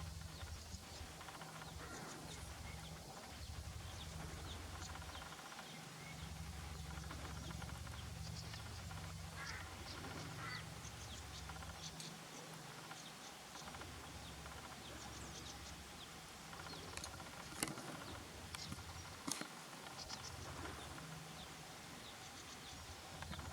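Birds giving short, faint high chirps and calls over a low rumble that comes and goes. Two sharp clicks stand out in the second half.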